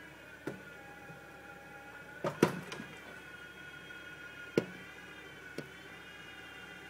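Electric winch motor whining steadily under heavy load as it drags a Suzuki Samurai buggy up a slope; the pitch sags slightly and recovers. The Samurai is still in gear, which is part of why the pull is so hard. A few sharp knocks cut across the whine, the loudest about two and a half seconds in.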